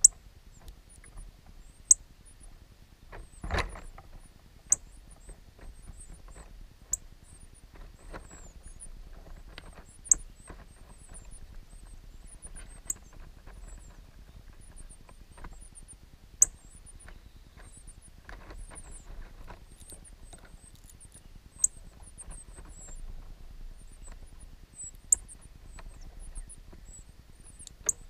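Northern cardinal nestlings begging: a continuous run of thin, very high peeps, with a sharp, louder chip every two to three seconds. A soft thump about three and a half seconds in.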